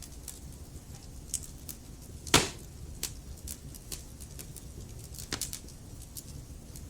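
Burning logs crackling, with irregular sharp pops over a low steady rumble of flames; one loud pop about two and a half seconds in and a quick run of snaps near the end.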